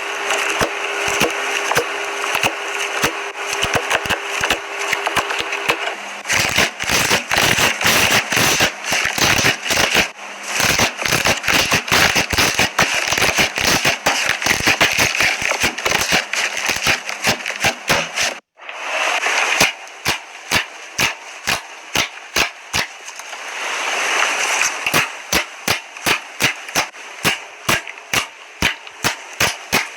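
Slime being squeezed and pressed by hand, with dense crisp crackling pops from air pockets bursting. About 18 s in the sound cuts briefly, and then the pops come singly, roughly two a second.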